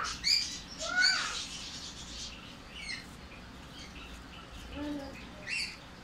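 Baby peach-faced lovebird calling with short, arched chirps: two loud ones in the first second and a half, then a few fainter ones spread through the rest.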